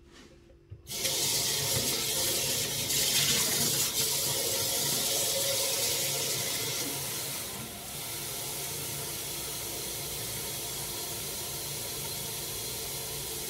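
Kitchen tap running into a bowl in the sink, filling it with water for the cooking pot: a steady rush that starts about a second in and gets a little quieter at about eight seconds.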